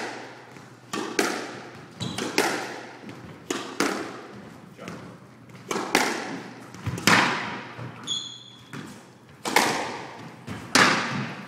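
Squash rally: the ball cracks off rackets and the walls about once a second, each hit echoing in the enclosed court. A shoe squeaks once on the wooden floor about eight seconds in.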